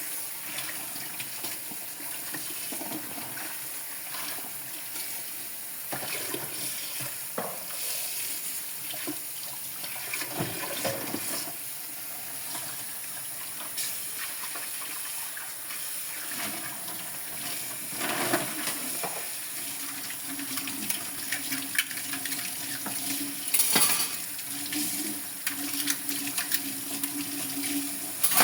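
Tap water running into a kitchen sink during dishwashing, with scattered clinks and knocks of dishes, the loudest about two-thirds of the way through.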